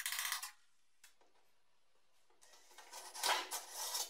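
Spot weld splitter being worked between two spot-welded steel sill panels: short spells of metal scraping against metal, one at the start and another from about two and a half seconds in, with a quiet gap between.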